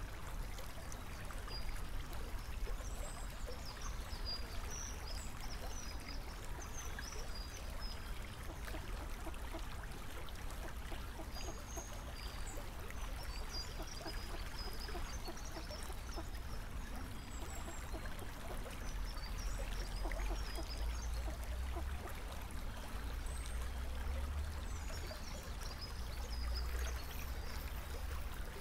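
Steady trickle of water over a low rumble, with small birds twittering faintly and high throughout. The heron itself makes no sound.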